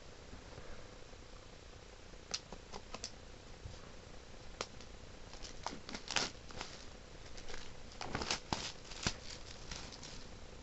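Shrink-wrapped Blu-ray case being handled and turned over in the hands: irregular clicks and crinkles of plastic, starting about two seconds in and coming in clusters.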